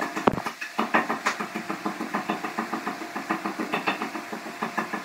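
One sharp knock, then rapid, even knocking at about four to five knocks a second that stops near the end.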